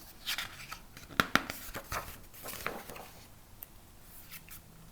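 A picture book's paper page being turned: rustling with a few crisp clicks for about three seconds, the sharpest clicks a little over a second in.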